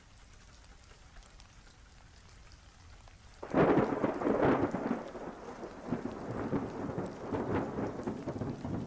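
Thunder with rain: quiet at first, then about three and a half seconds in a clap of thunder breaks in suddenly and rolls on, slowly dying away.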